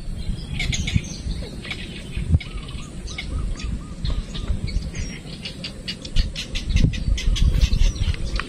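Wild birds calling: a short series of quick repeated whistled notes about two and a half seconds in, then a fast run of high chattering notes, over a steady low rumble.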